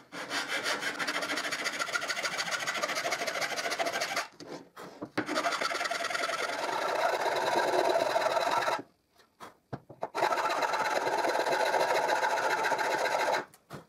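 Flat metal file rasping in quick back-and-forth strokes on the bottom of a hinge mortise in a wooden box, flattening it. The filing comes in three spells, with short pauses about four seconds in and again around nine to ten seconds.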